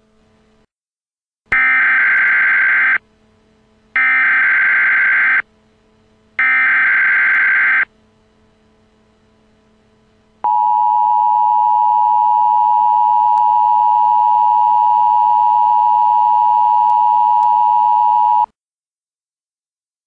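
Emergency alert signal: three short bursts of rapidly warbling data tones (the EAS digital header), then the steady, piercing two-tone attention signal held for about eight seconds before it cuts off.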